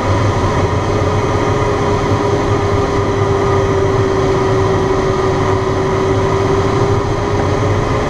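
Steady rush of air over a glider's canopy during the final turn, heard from inside the cockpit, with a steady tone held from about half a second in.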